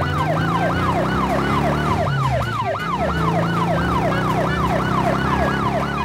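Police car siren on a fast yelp, each wail rising quickly and falling, about three a second.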